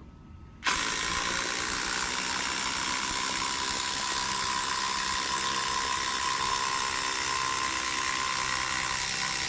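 Ryobi ONE+ PBLID02B impact driver driving a long screw into a wooden board under heavy load. It starts abruptly under a second in and runs steadily at one pitch.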